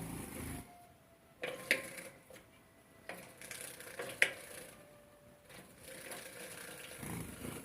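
Society finches bathing, splashing and fluttering their wings in shallow water in several short rattling bursts, with a few sharp clicks.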